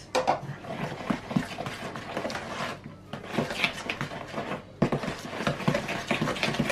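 Wooden spoon stirring thick chocolate brownie batter in a plastic mixing bowl: a quick, irregular run of knocks and scrapes against the bowl, with a short lull about three seconds in.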